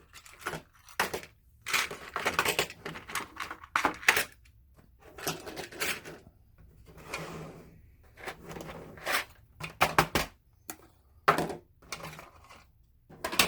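Plastic LEGO parts being handled: irregular bursts of clicking, clattering and rustling.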